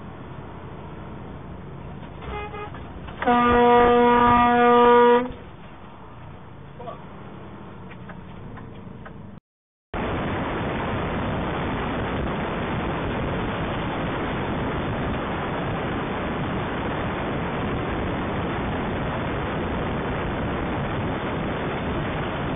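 A truck horn sounds once, a single held tone lasting about two seconds, a warning to a car cutting in. After a brief dropout about ten seconds in, a steady rush of road and wind noise from the moving truck follows.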